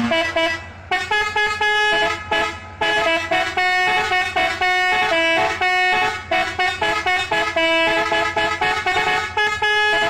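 A four-foot vehicle air horn playing a tune: about a dozen held notes in a row, each roughly half a second long, stepping up and down in pitch with brief breaks between some.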